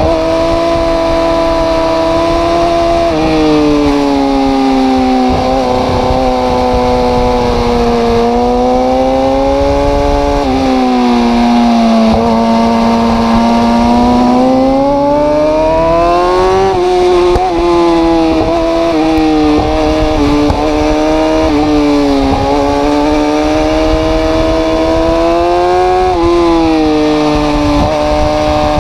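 Yamaha R6 inline-four engine running loud at high revs. Its pitch sinks and rises slowly over several seconds, with a few sudden steps up or down.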